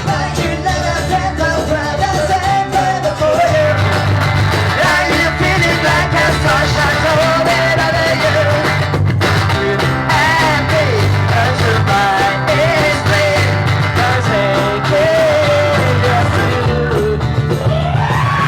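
Live rock band playing, with electric guitar carrying a wavering melody over a steady bass and drum beat. Near the end one note slides up and is held.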